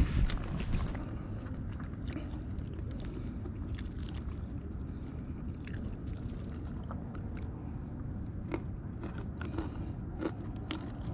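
Eating whole fried white perch by hand: chewing, with scattered small crackles as fingers pick at the crisp fried fish and the foil tray, over a steady low rumble. A louder rustle of handling in the first second.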